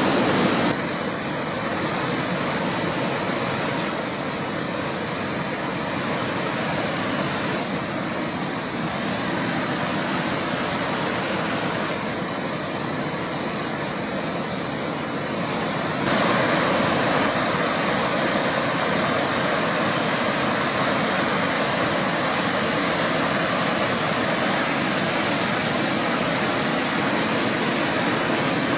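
Steady rushing of a mountain waterfall cascading over rock, which grows louder and brighter a little past halfway through.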